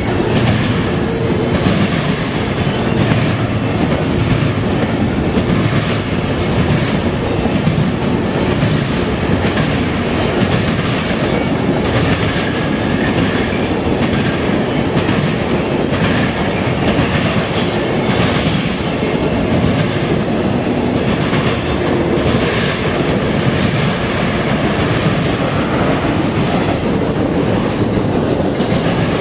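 CN double-stack intermodal freight train passing: a loud, steady running noise of steel wheels on rail, with irregular clicks as wheels cross rail joints.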